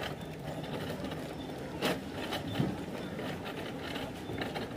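Busy supermarket background noise, a steady indistinct hum of the store, with a sharp clack about two seconds in and a dull thump just after.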